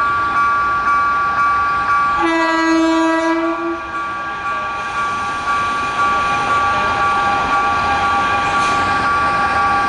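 Level crossing warning bell ringing in a steady rhythm, about one and a half strikes a second. About two seconds in, the approaching Renfe class 251 electric locomotive sounds its horn in one blast of about a second and a half.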